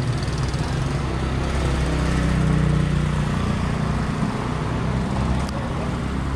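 An engine running close by, its note rising and getting louder about two seconds in, then easing back after about four seconds.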